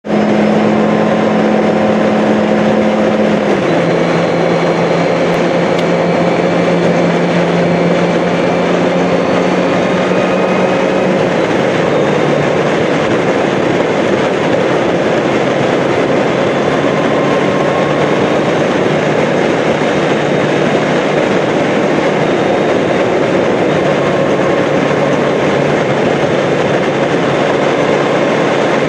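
Steady rush of wind and road noise on a motorcycle-mounted camera at riding speed, with the motorcycle's engine humming underneath. The engine note steps down in pitch twice, about 3 seconds in and again about 11 seconds in.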